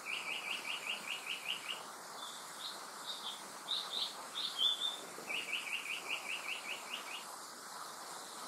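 Japanese paradise flycatcher singing two song phrases. Each is a few high slurred notes followed by a quick run of about ten repeated lower whistled notes, the second run coming about five seconds in.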